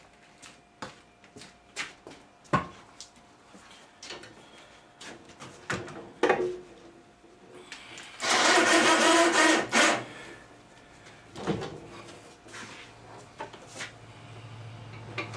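Clunks and knocks of an outboard motor being handled, with a loud scraping noise lasting about two seconds just past the middle.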